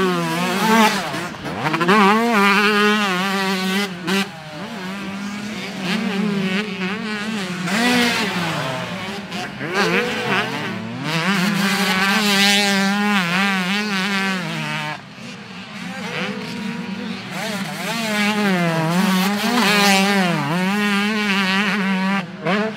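125cc two-stroke motocross bike engines revving hard, the pitch rising and falling quickly over and over as the throttle is worked through corners and over jumps. The sound dips briefly about two-thirds through.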